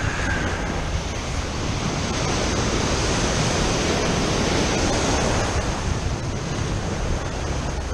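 Ocean surf breaking and washing in: a steady rush of waves that swells louder toward the middle, then eases.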